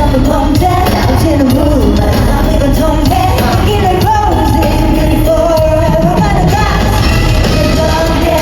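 Live pop-rock song through a concert PA system: a woman's voice singing the melody, with held notes, over bass and drums, echoing in a large hall.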